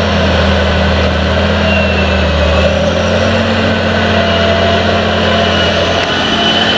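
Challenger MT865C rubber-tracked tractor's Caterpillar C18 six-cylinder diesel running steadily under ploughing load, a constant low drone, with a faint high whine joining near the end.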